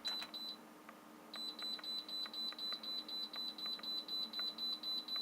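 Heat pump tumble dryer's control-panel beeper: three quick short beeps, then from about a second in a continuous high-pitched beep pulsing about three times a second. It sounds like a fire alarm going off.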